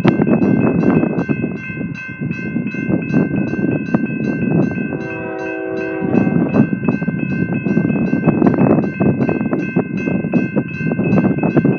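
Fast BNSF intermodal train rolling past, a steady rumble of wheels on rail. Over it a grade-crossing bell rings at about four strikes a second, and a short steady tone sounds a little past the middle.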